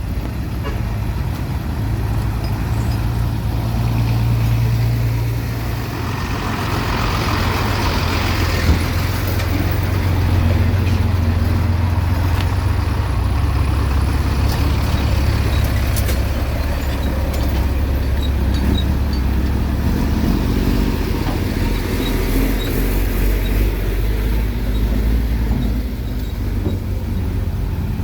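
Heavy diesel engine of earthmoving machinery running, a loud low drone that shifts in pitch a few times, with a rushing noise for a couple of seconds near the first third.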